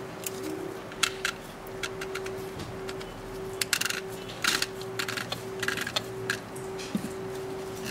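White plastic headband of a dental loupe headset handled in gloved hands: scattered plastic clicks and short rustles, about a dozen in all, over a steady faint hum.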